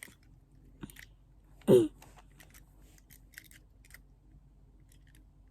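Plastic clicks and snaps of a Rubik's Cube being turned, scattered and irregular. About 1.7 s in there is one short, loud vocal sound.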